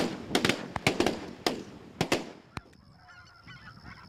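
A rapid volley of shotgun shots, several close together, over the first two and a half seconds. Then a flock of snow geese calls in the distance, quieter.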